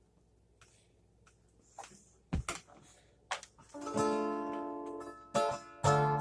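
A few scattered clicks and taps, then a guitar chord is strummed about four seconds in and left ringing, slowly dying away, with a second strum near the end.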